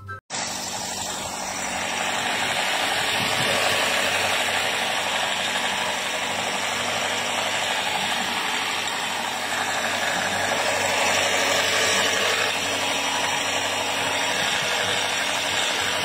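Toyota Veloz's 1.5-litre four-cylinder engine running steadily, heard up close in the open engine bay. The owner is chasing a metallic knocking noise that he traces to the belt's auto-tensioner and pulley, and that the dealer called fuel knock.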